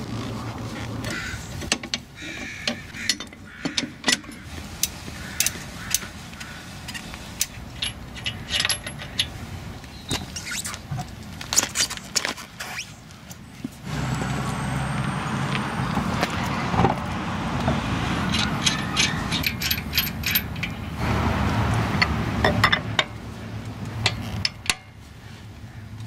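Lug wrench and lug nuts clinking and knocking against a car's wheel and hub during a wheel change: a long string of sharp metallic clicks and clatter. About halfway through, a steady low rumble comes in and lasts several seconds.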